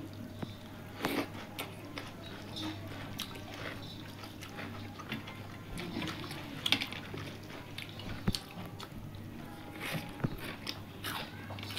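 Close-miked eating sounds of rice and fried fish eaten by hand: chewing, lip smacks and many short scattered clicks, over a steady low hum.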